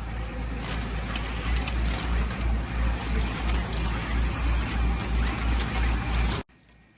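Sachet orientation machine on an automatic wet cat food pouch packaging line running: a steady mechanical clatter with a low pulsing beat about three times a second and scattered sharp clicks. It cuts off suddenly near the end.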